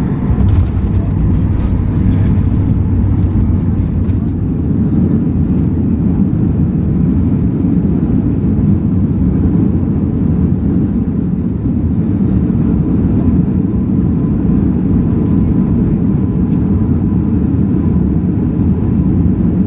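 Airliner cabin noise: a steady low rumble of jet engines and airflow heard from inside the passenger cabin, with a faint steady whine above it.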